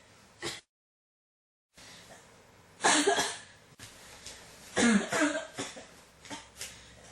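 A person coughing: a short cough at the start, then after a brief dead-silent gap two strong bouts of coughing about two seconds apart, with smaller coughs near the end.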